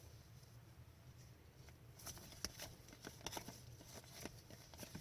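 Faint clicks and light rustles of trading cards being handled and flipped, starting about two seconds in after near silence.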